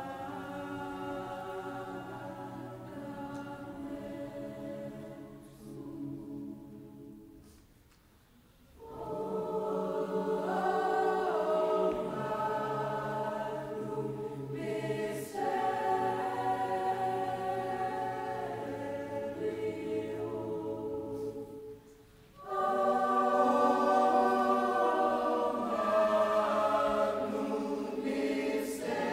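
Mixed choir singing a slow, sustained choral piece in long phrases. The singing thins almost to nothing about eight seconds in, returns louder a second later, breaks off briefly near 22 seconds, and comes back at its loudest.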